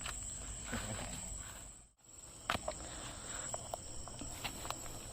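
Crickets or other night insects keeping up a steady high-pitched drone. The sound drops out briefly about two seconds in, and a few sharp clicks of handling follow.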